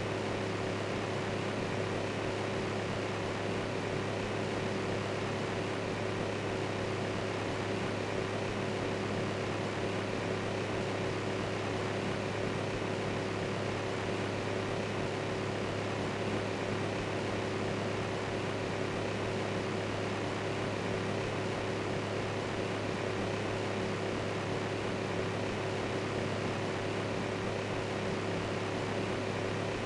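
Electric fan running steadily: an even whooshing noise with a steady low hum.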